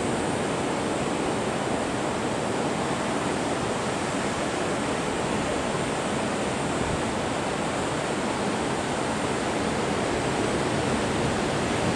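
Ocean surf breaking on a beach, a steady even wash of waves with no single break standing out.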